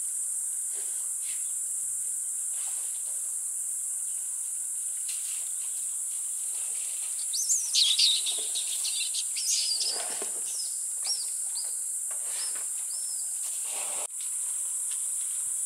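Wild birds calling with quick, chirping, gliding whistles, loudest in a burst about halfway through, over a steady high insect drone.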